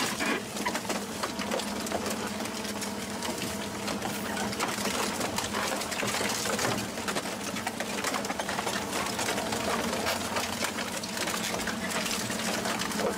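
Twin-shaft industrial shredder tearing through a car body: a steady machine hum with continuous crunching and crackling of sheet metal being ripped by the cutter shafts.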